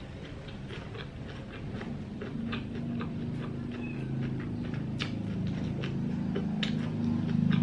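Close-up chewing of fresh rice-paper spring rolls: wet mouth clicks and smacks at an irregular few per second. Under them, a low pulsing hum grows louder from about two seconds in.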